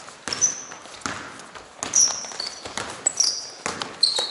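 A basketball bouncing on an indoor court among players' footfalls, with several short high sneaker squeaks on the floor.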